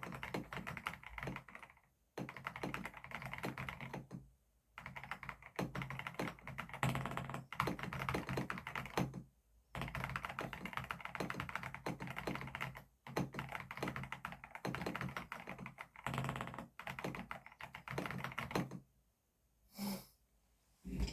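Epomaker RT100 mechanical keyboard with Epomaker Flamingo switches being typed on: fast runs of keystrokes broken by short pauses every few seconds, with a longer pause near the end.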